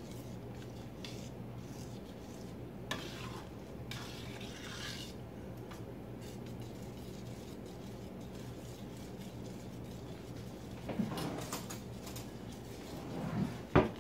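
A utensil stirring and scraping through thick cheese sauce in a stainless steel pot, with a few light clinks against the pot and a sharp clink just before the end. A steady low hum runs underneath.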